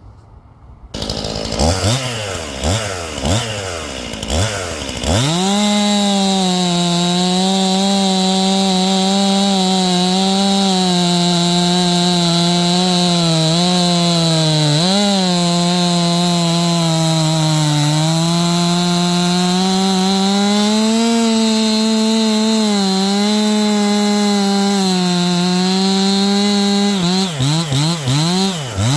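49cc Stihl two-stroke chainsaw revved a few times, then held at full throttle for about twenty seconds, its pitch sagging slightly and recovering as the chain cuts wood. Near the end it is blipped several times and let back down toward idle.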